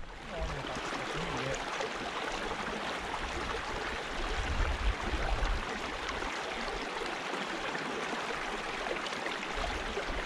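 Shallow burn running over stones, a steady rush of flowing water, with a low rumble of wind on the microphone about halfway through.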